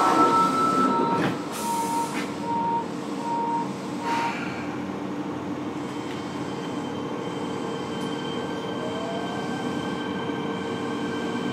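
Inside a Fukuoka City Subway 1000N-series car, a door warning beep repeats about twice a second. It stops about four seconds in with the thud of the doors closing. A faint rising whine then begins near the end as the train's motors start to pull it away.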